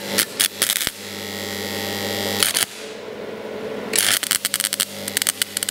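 Transformer stick welder at full output burning an electrode: the arc crackles and hisses over the machine's deep mains hum for about two and a half seconds, then goes out. About four seconds in it strikes again with an irregular, sputtering crackle. The machine lacks the power for the rod, so the arc is unsteady and keeps dying.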